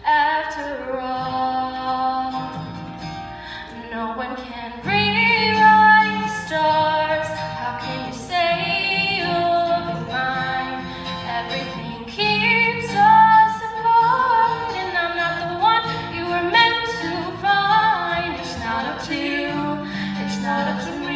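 Live acoustic duet: a girl and a boy singing to a strummed acoustic guitar.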